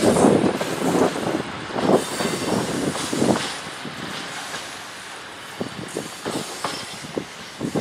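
Container freight train's loaded flat wagons rolling past, their wheels clattering with irregular knocks over the rail joints. The sound grows fainter in the second half as the last wagons go by.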